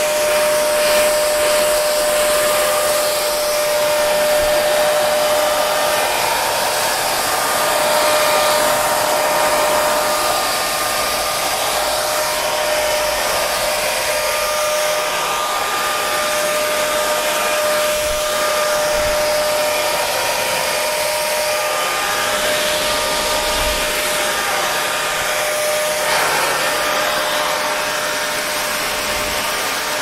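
Parlux 3500 hair dryer running steadily on long hair: a constant rush of blown air with a steady motor whine.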